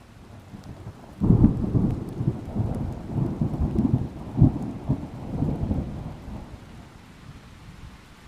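A thunderclap over steady rain: a sudden loud crack about a second in, then a deep rumble that rolls on in pulses for several seconds and fades away near the end.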